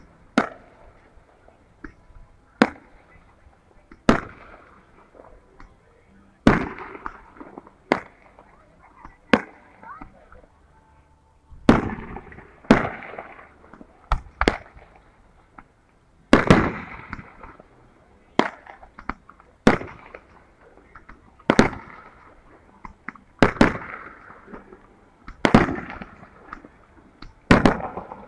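Aerial firework shells bursting in a steady run of sharp bangs, one every one to two seconds.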